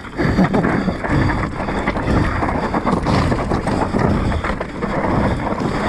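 Scott Ransom full-suspension mountain bike descending a dry, rocky singletrack: knobby tyres crunching over loose stones and dirt, with the bike rattling over bumps in quick, irregular knocks, and wind on the microphone.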